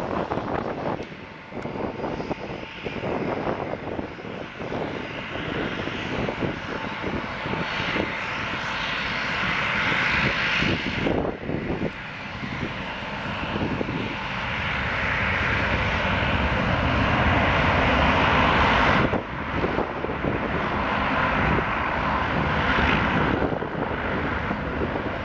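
Boeing 737-700 airliner's CFM56 jet engines rushing as it lands. About 11 seconds in there is an abrupt cut to a de Havilland Canada Dash 8 turboprop's engines and propellers running on the ground, a steady noise that grows louder, with another sudden cut about 19 seconds in.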